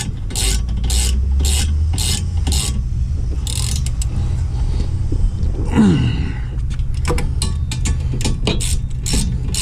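Half-inch drive ratchet clicking in quick, evenly spaced back-strokes, about two to three a second, as the rear wheel hub bolts are run tight. The clicking pauses in the middle, with a short sound falling in pitch about six seconds in, then resumes.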